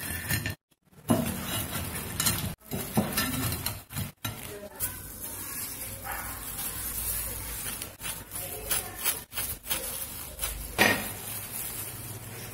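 Fried croquettes tipped from a glass bowl onto a glass plate and handled with a disposable plastic-gloved hand: light clinks and knocks on glass, with crackly plastic-glove rustling, and one sharper knock near the end.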